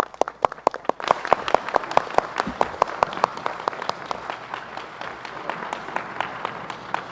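Audience applauding as the President is introduced, with a few nearby claps standing out sharply over the crowd's steady clapping, which eases slightly toward the end.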